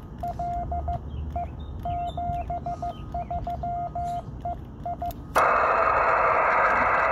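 Morse code (CW) from a 47 GHz microwave amateur radio station: a single steady tone keyed on and off in dots and dashes. A little after five seconds the keying stops, and a loud, steady rush of receiver hiss cuts in suddenly.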